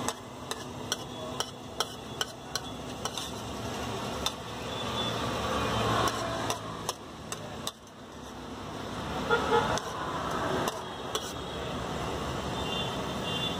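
Metal spatula tapping and scraping on a plastic plate in a series of sharp clicks, over steady street traffic noise.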